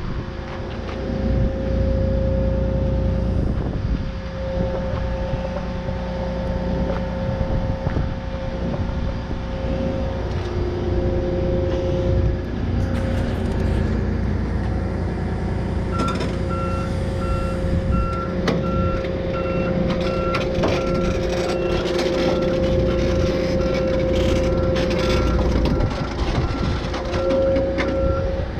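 Heavy equipment's diesel engine running steadily with a constant whine over the drone. About halfway through, a reversing alarm starts beeping at an even pace and keeps on, with scattered clanks.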